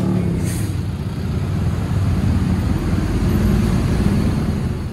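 Bus engine running as the bus pulls past close by, over a steady rumble of motorcycle and car traffic, with a short hiss about half a second in.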